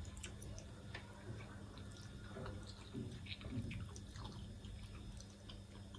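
Faint eating sounds of ramen being eaten: wet chewing and mouth noises with scattered small clicks, over a steady low hum.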